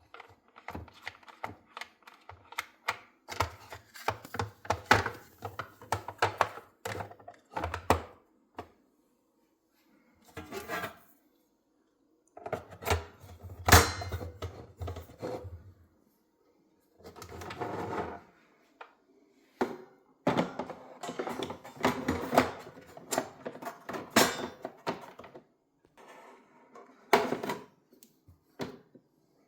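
Espresso machine parts and packaging being handled: bursts of irregular clicks and knocks with some rustling, broken by short pauses.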